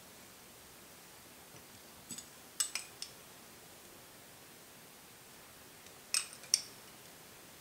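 Metal spoon clinking against a small glass bowl: a few quick, bright clinks about two seconds in, then another few near the end.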